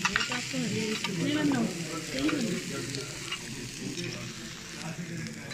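Table noise while eating: a steady hiss with scattered light clicks of cutlery on plates, and faint voices wavering in the background.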